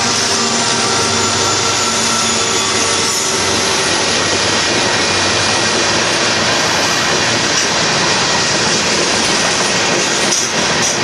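Freight train of covered hopper cars rolling past: a steady, loud noise of steel wheels running on the rails. The diesel engine of the last Union Pacific locomotive is heard as a steady tone that fades out over the first few seconds.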